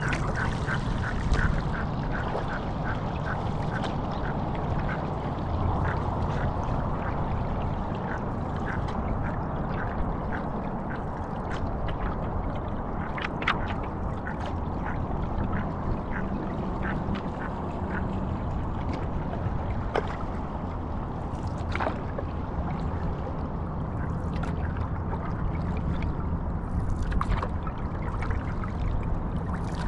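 Ducks quacking: a quick, even run of short quacks at first, then scattered single calls, over a steady low background noise.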